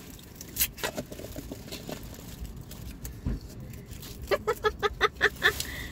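Scattered light clicks and crinkles of takeaway packaging being handled, then about a second of quick, rhythmic laughter pulses a little past the middle, the loudest sound.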